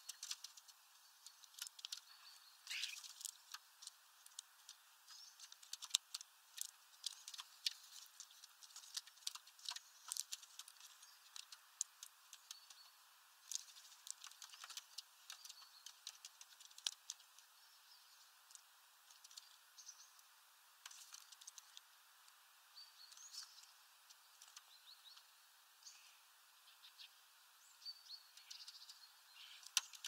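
Faint, irregular patter of sharp clicks and taps, with short high bird chirps scattered through it.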